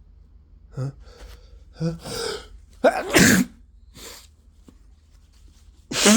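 A person sneezing in a flu sneezing fit: a couple of short catching inhales build up to one loud sneeze about three seconds in, and a second loud sneeze bursts out right at the end.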